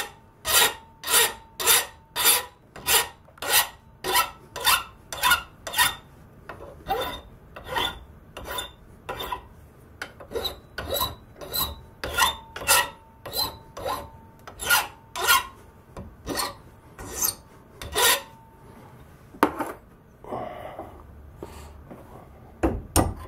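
Hand file rasping across the sawn edge of a metal bar held in a bench vise, steady back-and-forth strokes about two a second, deburring the sharp edges left by bandsaw cutting. The strokes stop a few seconds before the end, and a single thump follows near the end.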